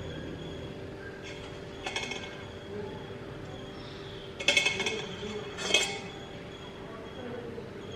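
Light metallic clinks from a stainless steel puttu tube as handfuls of grated coconut and rice flour are dropped and packed into it by hand: three short ringing clinks about 2, 4½ and 6 seconds in, the last two the loudest, over a steady faint hum.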